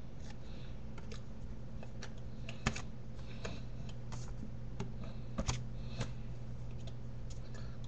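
Irregular soft taps, clicks and brushing of hands striking and rubbing together during sign language, with a sharper tap a little before 3 seconds and two more near 5.5 seconds, over a steady low electrical hum.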